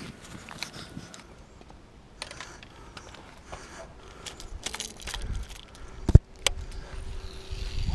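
Small metallic clinks and clicks of a fishing lure's treble hooks and wire leader being handled, with a sharp click about six seconds in. Some wind rumble on the microphone near the end.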